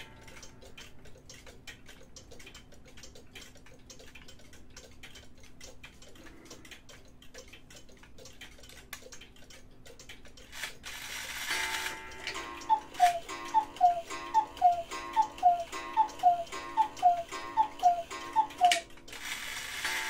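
Kienzle wall clock's movement clicking and ticking as its hands are turned round to the hour. About eleven seconds in, the striking train whirrs into action and the clock sounds the hour with a two-note call, high then lower, repeated about eleven times.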